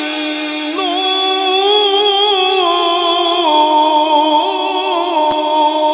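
A man's voice in melodic Quran recitation (tilawat), one syllable drawn out in long, ornamented held notes. The pitch wavers and steps down, then settles onto a steady held note about halfway through.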